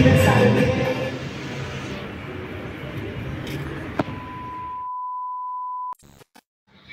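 Background music fading out, then a click and a steady, high test-pattern beep held for about two seconds that cuts off abruptly into a few short glitchy crackles: a TV colour-bars transition effect.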